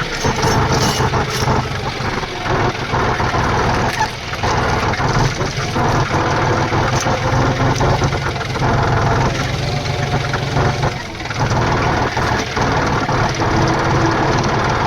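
Tractor engine running steadily, with its level dipping briefly twice.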